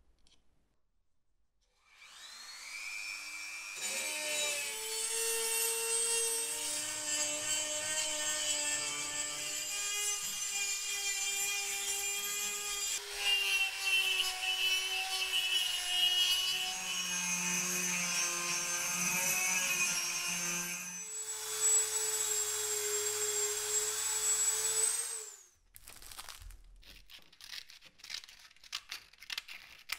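Dremel rotary tool running at high speed, a steady whine that shifts pitch a couple of times as its small abrasive point grinds the steel inside a hole in a hatchet head; it stops abruptly about 25 seconds in. Near the end, a few short rasping snips of scissors cutting sandpaper.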